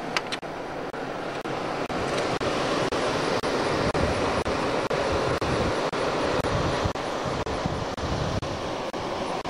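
Steady rushing noise of wind on a camcorder microphone, with light regular ticks about twice a second.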